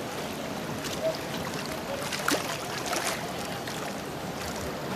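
River water splashing and lapping, with a few sharp slaps about two and three seconds in.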